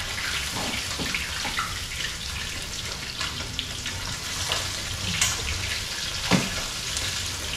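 Fish frying in hot oil in a pan, a steady sizzle, with a few sharp clicks of metal tongs against the pan as the pieces are turned.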